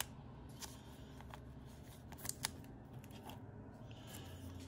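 Faint rustle and small clicks of a clear plastic penny sleeve as a trading card is slid into it, then trading cards being thumbed through in the hand. A few sharp little clicks stand out, one at the start and two about two and a half seconds in.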